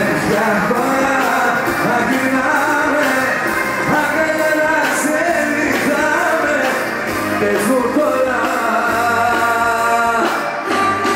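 Live band playing a Greek pop song with singing, drums keeping a steady beat.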